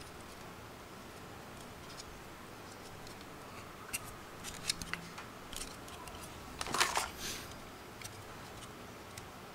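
Black plastic Raspberry Pi 3 case being handled and turned in the hands: scattered light plastic clicks and taps from about four seconds in, with a brief louder rustle near seven seconds.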